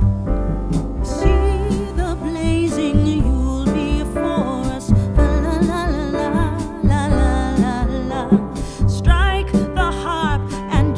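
Background song with a sung melody over piano chords, bass and a steady beat.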